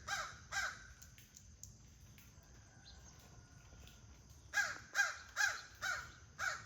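A crow cawing: two caws at the start, then a quick run of five or six caws a few seconds later.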